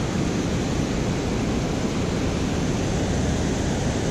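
Steady rush of high water pouring over a river spillway, a constant deep-toned roar of moving water.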